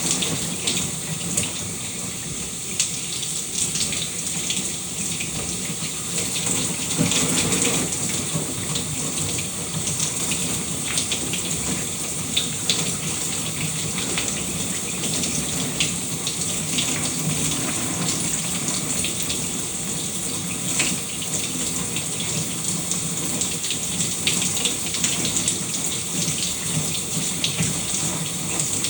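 Shower running steadily, water spraying and pattering, with small irregular splashes.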